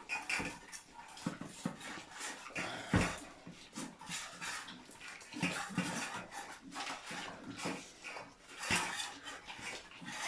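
Small dogs eating from food bowls: irregular chewing with scattered clicks and knocks of the bowls being pushed about.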